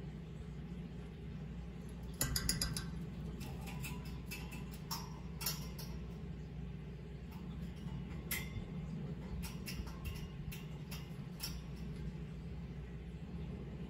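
A cockatiel stamping its feet on a wooden perch: a quick run of sharp taps about two seconds in, then scattered single taps, over a steady low hum.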